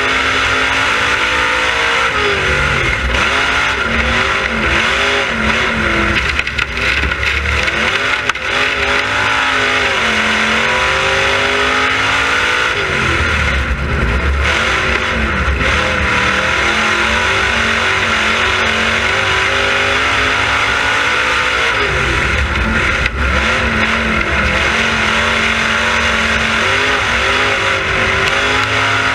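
Dirt-track race car engine at full song during hot laps, heard from inside the cockpit. Its pitch drops and climbs again several times as it slows for the turns and accelerates down the straights.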